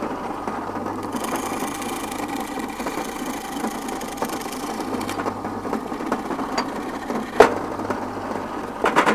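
Drill press running, its spade bit boring a hole through a square wooden fence pole. A couple of sharp knocks come in the last two seconds.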